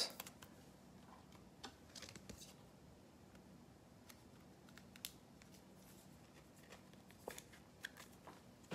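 Near silence: room tone with a faint steady hum and a few scattered soft clicks and rustles of trading cards and plastic holders being handled.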